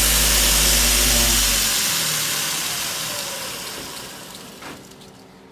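Homemade 2x48 belt grinder running with a steady whir and a low electric hum. About two seconds in the hum stops as the motor is switched off, and the belt coasts down, its whir fading away over the next few seconds.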